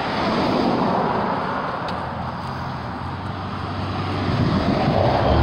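Loud road traffic passing close by: a rush of vehicle noise with a low engine hum that swells about half a second in and again near the end, then cuts off suddenly.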